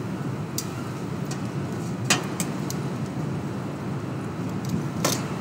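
Metal tongs clicking and tapping against a frying pan several times while chicken thighs are laid in, the sharpest clicks about two seconds in and near the end, over a steady low hum of kitchen ventilation.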